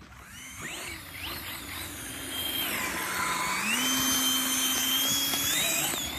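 Electric RC car fitted with an electric ducted-fan (EDF) jet, its motor and fan whining high over a rushing hiss. The whine steps up in pitch about a second in and again midway, growing louder as the car speeds off.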